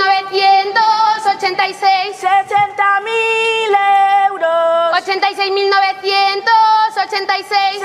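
Two schoolgirls singing out a drawn Christmas Lottery number and its prize in the traditional lottery chant, a sing-song of held notes stepping between a few pitches, syllable by syllable. The chant is the call of a fifth prize.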